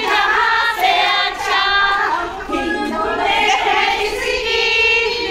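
Group of women singing a song together, antakshari-style, their voices held and gliding in pitch.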